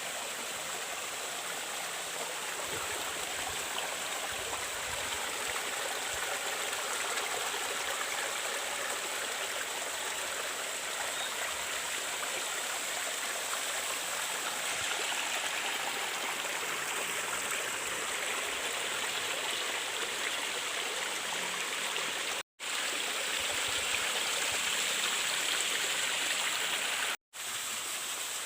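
Steady rushing of flowing water from a mountain stream, broken twice near the end by brief silent gaps.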